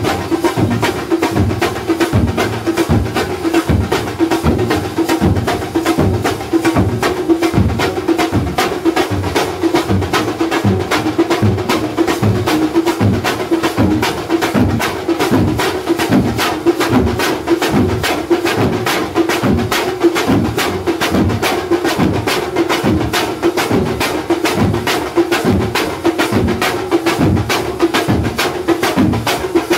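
Thambolam percussion band playing: large frame drums beaten with sticks, small side drums and clashing steel hand cymbals. They keep a fast, driving rhythm with heavy low beats about twice a second under quicker metallic cymbal strokes.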